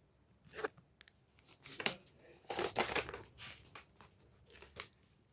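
Paper crinkling and rustling in irregular bursts as it is handled and folded, busiest about halfway through.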